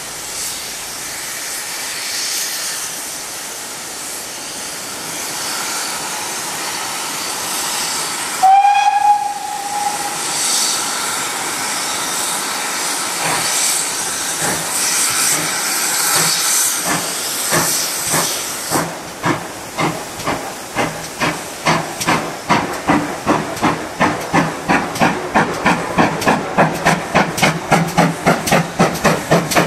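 GWR 57xx pannier tank locomotive hissing steam at a standstill, then giving one short whistle about eight seconds in. After more hissing it starts away, its exhaust beats quickening to about three a second.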